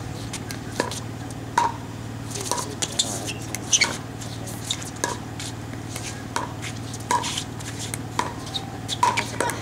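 Pickleball paddles hitting a hollow plastic ball back and forth in a doubles rally: a string of sharp, short pocks at irregular intervals of about half a second to a second. A steady low hum runs underneath.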